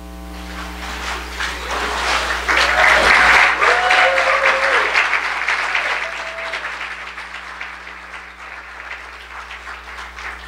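Congregation applauding and cheering, building over the first couple of seconds to a peak about three seconds in, with a few voices calling out, then gradually dying away.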